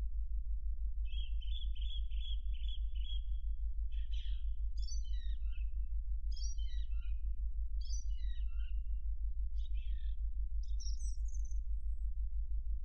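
Songbird singing: a quick trill of about seven repeated notes, then five or six short, varied warbled phrases, over a steady low hum.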